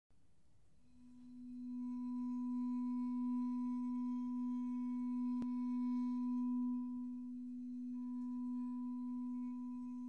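A vibraphone bar bowed: one steady pure tone that swells in about a second in and holds, with a faint overtone two octaves above.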